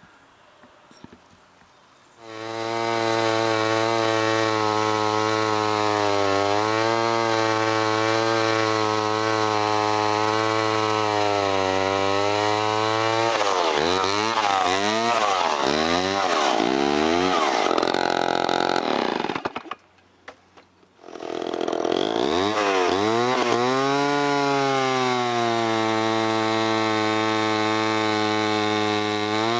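A 1963–64 Homelite C-7 chainsaw, an 80.5 cc two-stroke, running at high speed while cutting a log into rounds, its pitch wavering and swooping as the load changes. It starts abruptly after about two quiet seconds, drops out for about a second two-thirds of the way through, then comes back with a rising pitch that settles steady.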